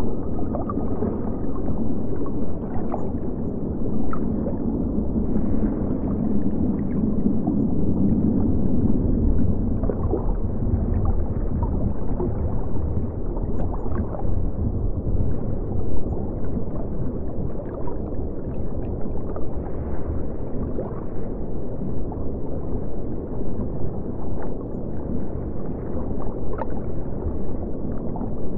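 Steady muffled underwater water ambience: a low rumble with scattered small bubbling ticks.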